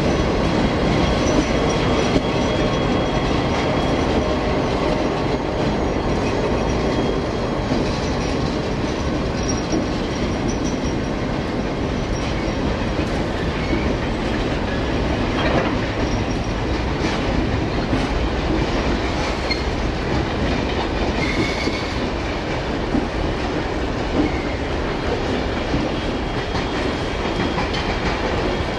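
Several Clyde-built diesel locomotives coupled together moving slowly through a station, their engines running steadily and their wheels rolling on the rails.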